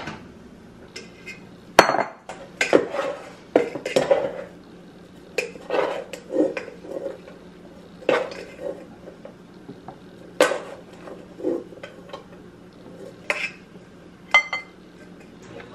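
A utensil scraping and knocking against a rice cooker's inner pot as cooked rice is scooped out into a bowl, in irregular strokes and clinks. A faint steady low hum runs underneath.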